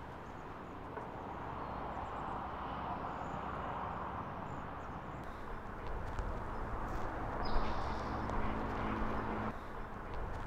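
Outdoor ambience: a steady hiss over a low rumble, with the rumble getting stronger about six seconds in and a short bird chirp a little after.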